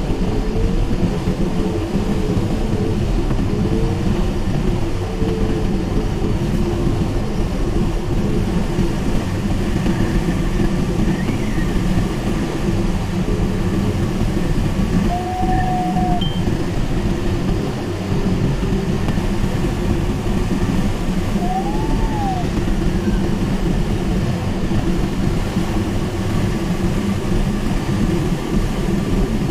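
Steady rush of airflow over the canopy and fuselage heard inside the cockpit of an unpowered Mini Nimbus HS7 sailplane in gliding flight.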